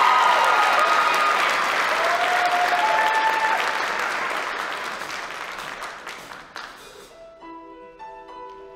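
Audience applause and a few cheering shouts after a show choir number, dying away over several seconds. Near the end, a few soft, sustained piano notes begin the next song.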